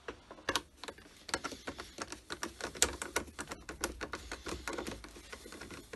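Screwdriver turning a screw out of the plastic housing of a Dyson DC39 vacuum cleaner: a fast, irregular run of small clicks and scrapes.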